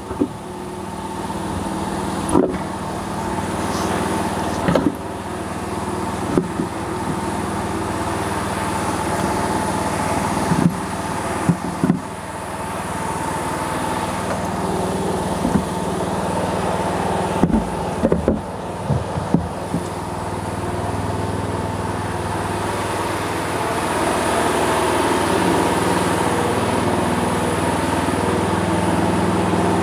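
An engine running steadily throughout, with scattered clunks and knocks as a heavy truck dual wheel and tire are worked off the hub and handled.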